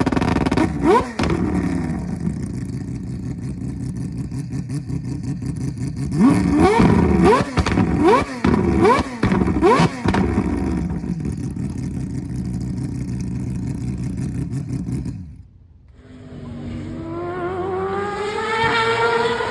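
Mazda 767B's four-rotor rotary engine idling rough and loud, revved in sharp throttle blips: one near the start and a quick run of about five between 6 and 10 seconds in. After a short break near the end, it climbs steadily in pitch as it accelerates.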